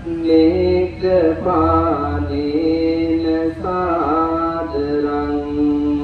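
Male voice chanting a Pali offering verse in long, drawn-out melodic notes, holding one steady note through the last second or so.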